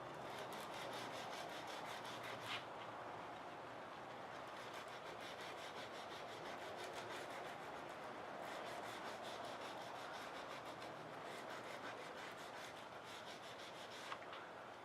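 Sandpaper rubbed back and forth in quick strokes inside a saw-cut groove in a wooden dowel, widening the groove so a wire will fit into it. A small knock sounds about two and a half seconds in.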